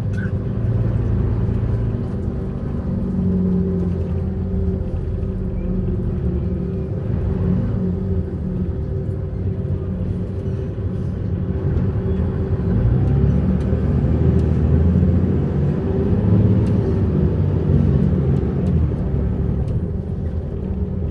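Apron bus driving, heard from inside the cabin: a steady low engine and road rumble whose note wavers as the bus moves, growing somewhat louder past the middle.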